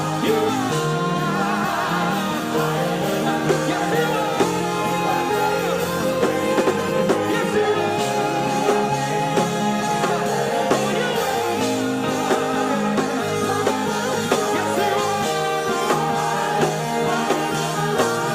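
Live praise band music: a sung melody over electric guitar, bass and drum kit keeping a steady beat.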